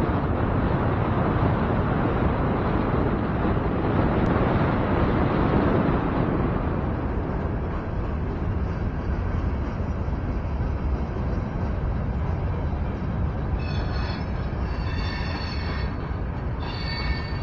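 Freight train rolling through a road crossing: a steady, loud rumble of passing wagons. In the last few seconds several high-pitched squeals come and go.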